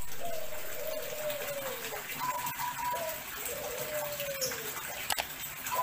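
Pigeon cooing: two long coos about three seconds apart, each a held note that slides down in pitch.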